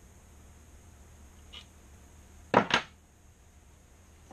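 A faint click, then two quick, sharp metallic clacks close together, from metal grinder parts or hand tools being handled and set down on the workbench.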